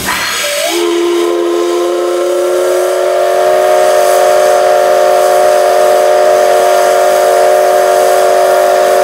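Steam whistle of the C62 2 steam locomotive blowing one long blast. It opens on a rush of steam hiss, then under a second in the whistle speaks with several notes at once, which rise a little and settle into a loud, steady chord.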